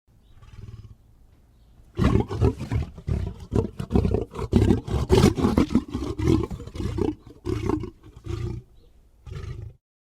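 Designed monster sound effect of a demon bear-dragon creature roaring, a blend of bear and dragon roars. After a faint low breath, a loud, rough, rattling roar starts about two seconds in and lasts about six seconds, then trails off in two short growls near the end.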